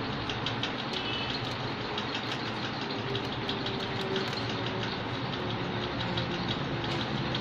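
Steady mechanical running noise with a low hum, with faint light ticks from handling over it.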